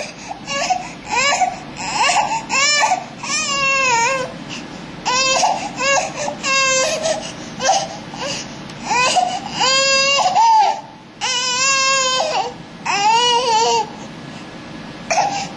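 A baby crying in a string of high wails, most about half a second to a second long, some wavering in pitch.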